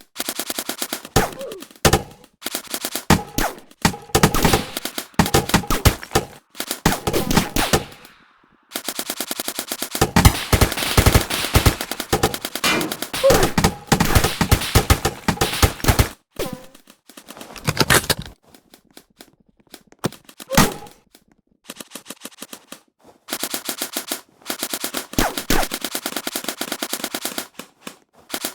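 Airsoft guns firing on full auto: long bursts of rapid shots with short pauses between them, the longest lasting about seven seconds near the middle.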